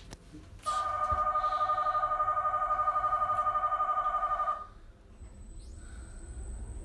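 Slope car's electric departure bell ringing with a rapid trill for about four seconds, starting just under a second in. After it stops, a low rumble builds as the car starts to move.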